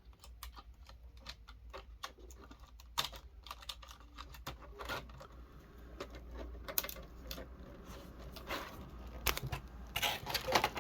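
Small hard plastic parts being handled, giving faint, irregular light clicks and taps that grow busier near the end.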